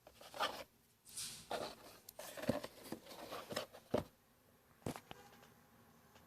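Handling noises: irregular rustling and scraping with a few light clicks and knocks, the loudest about four seconds in and another just before five seconds.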